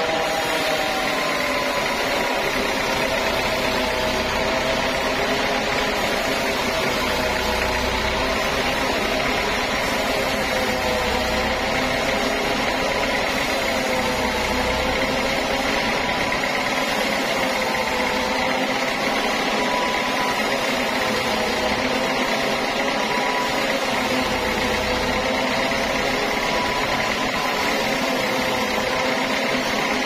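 Large band sawmill cutting lengthwise through a wide log: a steady high whine from the running saw, with lower tones that waver slowly in pitch as the blade works through the wood.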